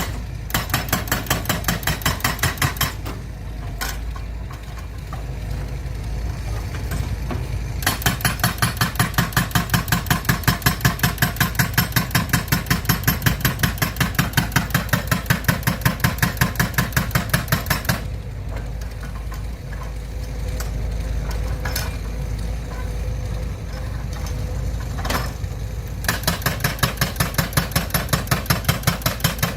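A machine running with a rapid, even mechanical clatter, about seven clicks a second. The clatter comes in three stretches, with a quieter steady running sound between them.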